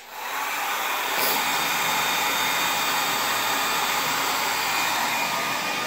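Small handheld hair dryer switched on with a click, then building up over about a second to a steady blow that runs on evenly.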